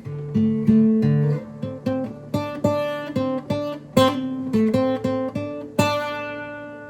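Acoustic guitar playing, single plucked notes and strummed chords that ring out and fade, with louder chords about four seconds in and again near the end.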